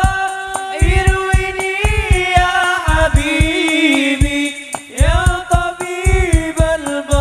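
Male vocalists singing sholawat into microphones, holding long high notes with wavering ornaments. Under the voices, low drums play in quick runs of beats, about a second in and again about five seconds in.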